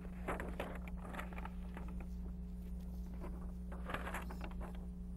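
Background of an old speech recording between words: a steady low hum and hiss, with a few faint clicks and rustles, most of them about a second in and around four seconds in.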